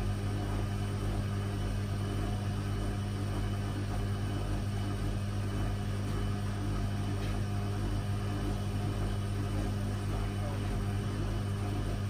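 Hoover Zodiac 12 front-loading washing machine spinning, a steady low motor hum and rumble with no change in pitch.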